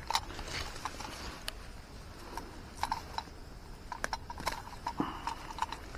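Scattered rustling and irregular light clicks and snaps of leaves, twigs and undergrowth being brushed and handled at close range.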